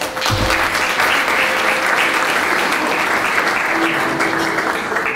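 Audience applauding: dense, steady clapping that begins just after a short low thump and thins a little near the end.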